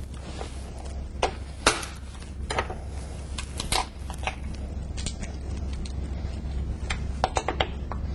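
Cooked lobster claw shell being cut with a chef's knife and cracked open by hand on a metal sheet pan: scattered sharp cracks and clicks, several in the first half and a quick cluster near the end. A steady low hum runs underneath.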